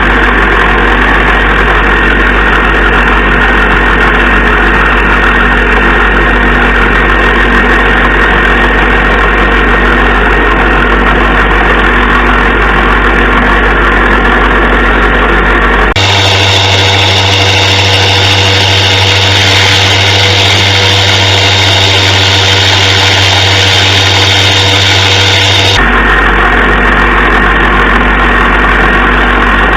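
Motor-driven sharpening wheel running steadily as a knife is sharpened on it. Its tone changes suddenly partway through and changes back about ten seconds later.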